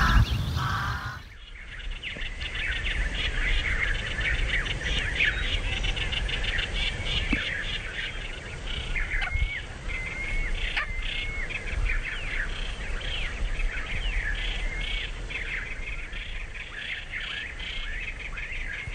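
A chorus of small songbirds chirping and trilling continuously, with many overlapping calls and a few longer warbled phrases.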